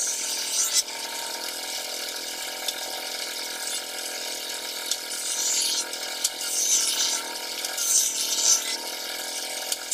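Electric hand drill boring into the wooden door frame in several short bursts in the second half, over a steady mechanical hum.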